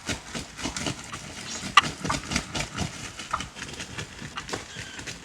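Wild turkeys flapping and thrashing: a quick, irregular run of wing beats and knocks, with one louder knock about two seconds in.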